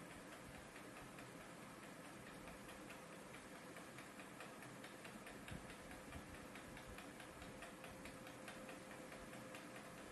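Near silence: faint steady hiss and a thin steady tone, with light, regular ticking throughout.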